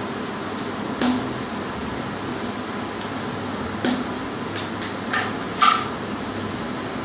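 Tight-fitting plastic sections of a segmented hula hoop being pushed together, giving a few sharp clicks and knocks: about a second in, near four seconds, and twice between five and six seconds, the last the loudest. A steady background hiss runs underneath.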